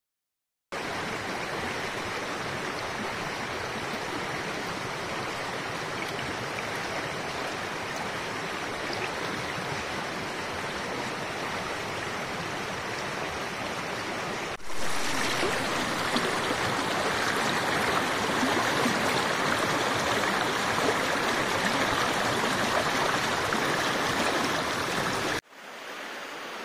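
Shallow rocky stream rushing over stones, a steady rush of water. It grows louder about halfway through and drops away suddenly near the end.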